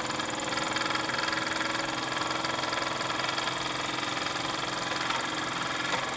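Wilesco D4/D5 toy live steam engine running steadily at speed, its small cylinder and flywheel making an even mechanical whirr.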